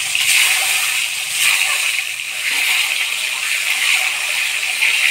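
Hot oil sizzling and crackling steadily in a kadai as whole boiled eggs, rubbed with turmeric and salt, are dropped in and shallow-fried.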